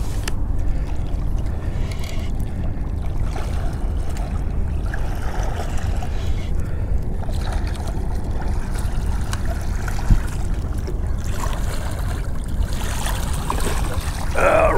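Steady low rumble of wind and water around a small boat as a hooked fish is reeled in. Near the end, a catfish splashes and thrashes at the surface as it is netted beside the boat.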